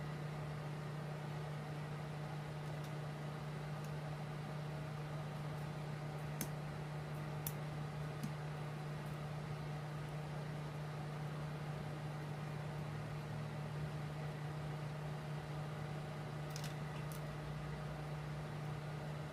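Steady low hum under a constant hiss, with a few faint clicks from small phone parts being handled and pried apart.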